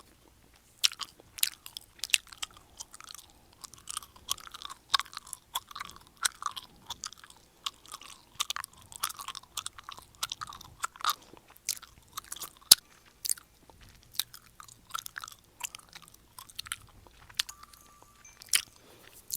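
A person chewing gum with their mouth open, a run of irregular wet smacks and clicks, several a second, with short pauses between runs.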